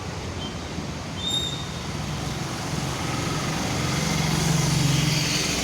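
Motor vehicle engine running with road noise, growing louder about four to five seconds in.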